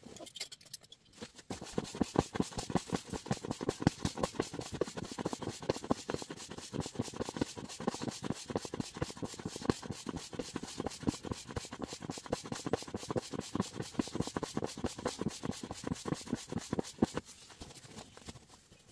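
A fast, even run of knocks or taps, about four to five a second, kept up for some fifteen seconds before stopping near the end.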